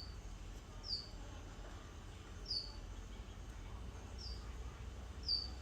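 A small bird giving short, high chirps that fall in pitch, one every second or two, over a steady low hum.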